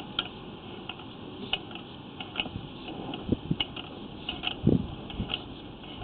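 Sewer inspection camera rig being worked through a sewer line: irregular clicks and a few dull thumps from the push cable and its handling, over a steady hum.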